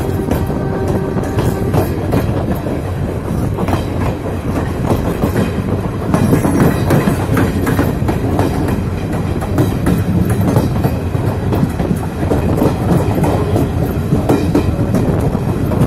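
Railway coach wheels and bogie running along the track at speed: a steady rolling din with rapid, irregular clickety-clack of the wheels over the rails, a little louder from about six seconds in.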